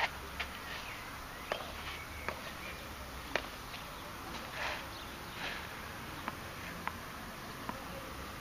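Tennis ball and racket taps on a clay court: about eight short, sharp knocks at irregular intervals, the loudest at the very start, over a steady faint outdoor background.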